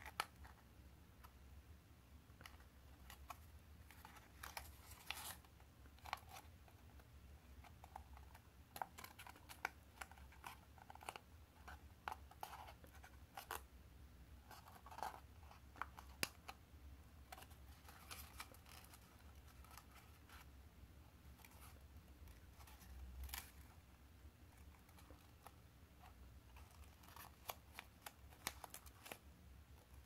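Faint rustling and crinkling of a 15 cm square sheet of origami paper being folded and creased by hand, in short, irregular crackles and light taps.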